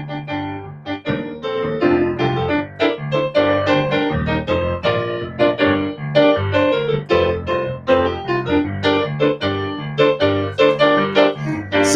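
Yamaha electronic keyboard played with a piano sound: an instrumental break of chords struck over a bass line, with no singing.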